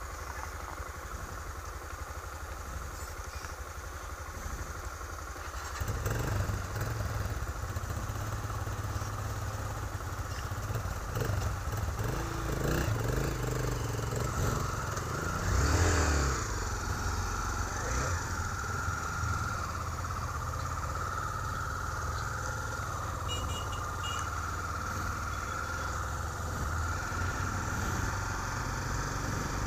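Motorcycle engine running. It gets louder about six seconds in, and its revs rise and fall a few times before it settles into a steady run.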